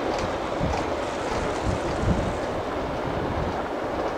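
Steady rumble of a CSX manifest freight train's cars rolling past, with wind buffeting the microphone.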